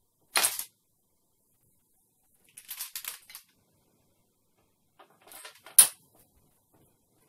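Imitation katana drawn fast from its scabbard, a short sharp swish of the blade leaving the scabbard mouth about half a second in. A brief clinking rattle follows midway. Near the end the blade scrapes back into the scabbard and stops with a loud click as the guard seats against the scabbard mouth.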